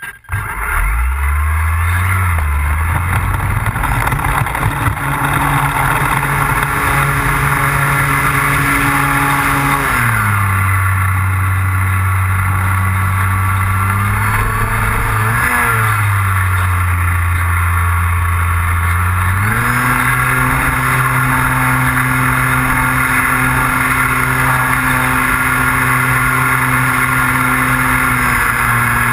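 RC model airplane engine running steadily at high speed. Its pitch drops as it is throttled back about ten seconds in, then rises again just before twenty seconds.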